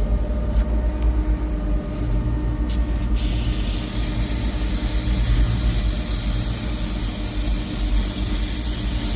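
Refrigerant gas hissing out of a loosely fitted recovery hose as the hose is purged. The hiss starts suddenly about three seconds in and stays steady, over a steady low rumble, with a few light clicks before it.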